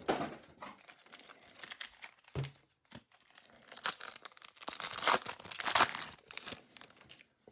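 The wrapper of a 2021 Topps Holiday baseball card pack being torn open and crinkled, in several short rustling tears. The loudest tears come about four to six seconds in.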